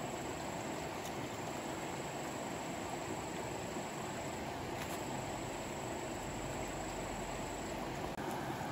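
Steady outdoor background noise: an even hiss with no distinct events in it.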